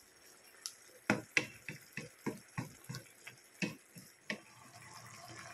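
Wooden spatula knocking and scraping against a nonstick wok while pork and onions are stirred in sauce: about a dozen irregular taps, roughly three a second, starting about a second in and stopping just past the middle.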